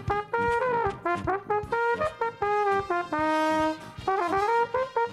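Trumpet playing a lively tune of short notes, with one longer held note about three seconds in, sounded as a wake-up call.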